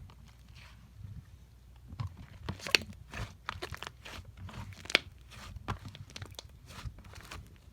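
Slime worked by hand, giving a run of small crackles and clicks with two sharper pops, one under three seconds in and one about five seconds in.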